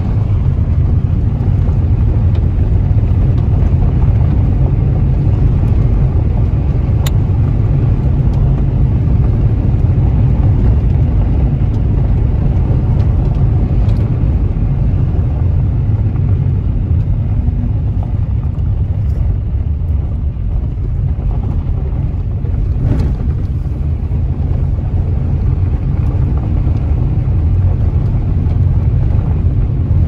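Car driving on a gravel road, heard from inside the cabin: a steady low rumble of tyres on gravel and engine, with a few faint clicks.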